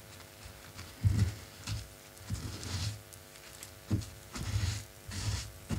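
A paper tissue rubbing and rustling, with light knocks as small craft items are handled on a cutting mat, in several short bouts over a steady faint hum.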